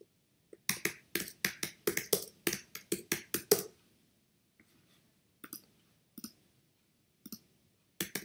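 Computer keyboard being typed on: a quick run of keystrokes lasting about three seconds, then a few single keystrokes spaced out toward the end.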